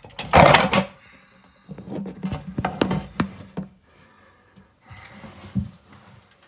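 A loud rubbing knock about half a second in as the camera is handled and set down, then a run of sharp metallic clinks and knocks as spanners are moved about on the cabinet base.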